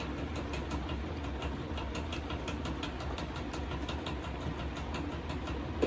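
Steady low mechanical hum with a fast, even ticking, about five ticks a second.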